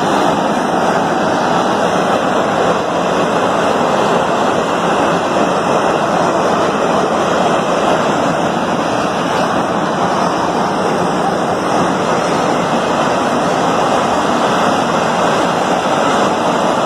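Steady, loud rushing hiss of steam escaping from a ruptured steam line in a sugar mill.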